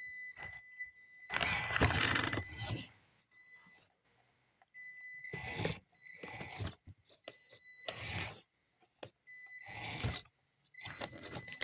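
Traxxas TRX-4M RC crawler's small electric motor and gears running in several short bursts of throttle as it climbs a steep cardboard ramp, with its tyres scraping on the cardboard. A thin, steady high whine carries on between the bursts.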